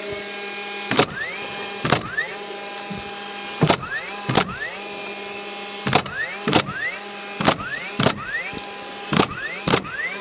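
A power nailer driving nails into lumber: about ten sharp shots, mostly in pairs, each followed by a short rising whine, over a steady motor hum.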